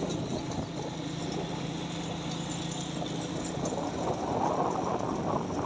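Small motorcycle engines running as the riders move off along a street: a steady hum at first, then growing wind and road noise from a little past halfway.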